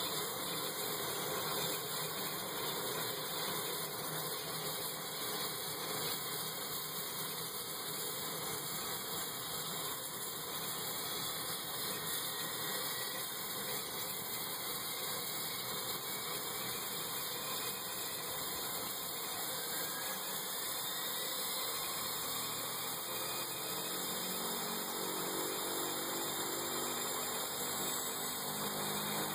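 Air Tractor AT-502's Pratt & Whitney PT6A turboprop idling on the ground, a steady whine and hiss. A faint rising tone comes in about two-thirds of the way through, and a lower pulsing hum joins near the end.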